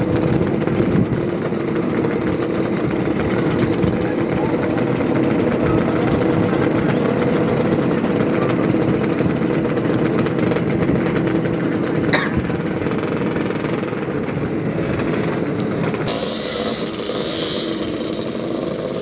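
Old two-stroke Yamaha L2-series motorcycle engines running steadily with a fast, rattly pulse, their exhaust smoking heavily.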